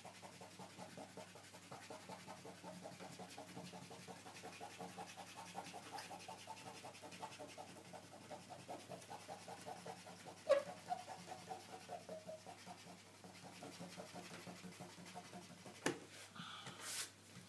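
Eraser rubbing quickly back and forth over drawing paper in a fast, steady run of scrubbing strokes, rubbing out the pencil marks under an inked drawing. A sharp click comes about ten seconds in, and a light knock near the end.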